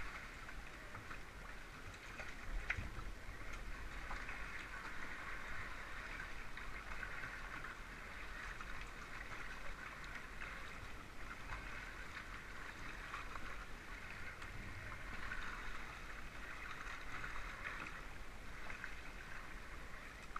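Sea water splashing and gurgling around a kayak under paddle: a steady wash with small splashes, one a little louder about three seconds in.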